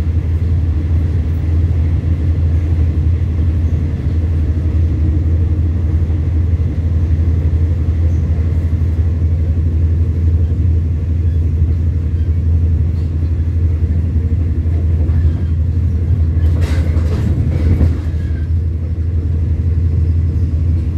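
Passenger train running at speed, heard from inside a carriage: a steady low rumble of wheels on the rails. A brief clatter comes about seventeen seconds in.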